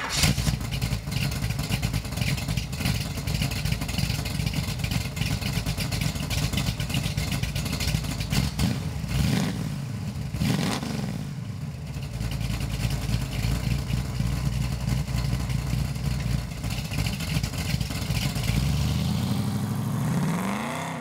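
First-generation Chevrolet Camaro's engine running, heard from close behind its exhaust. Near the end its pitch rises steadily as the car accelerates away.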